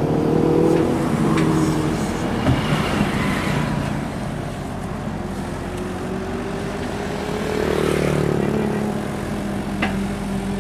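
Sumitomo 265 excavator's diesel engine running under working load, the engine note dropping back for a few seconds and then rising again near the end, with a couple of sharp knocks in the first few seconds.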